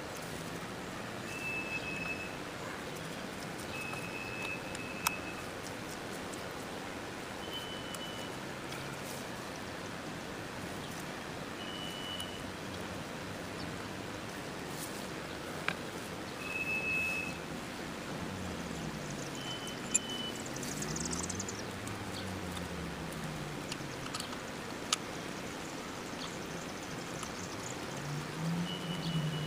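Outdoor background hiss, with a short high steady note repeating every few seconds and a few sharp metallic clicks while the shift lever is fitted back onto the motorcycle's shifter shaft. A low hum rises and falls briefly past the middle.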